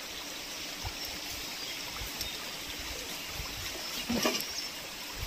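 Steady trickling hiss of a small stream, with a few faint clicks and a brief voice sound about four seconds in.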